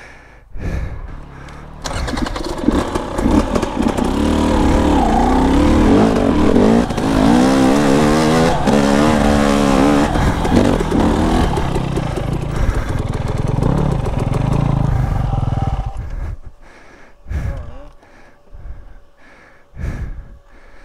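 KTM enduro dirt bike engine revving as it climbs a rocky trail, its pitch rising and falling with the throttle, then dying away about sixteen seconds in.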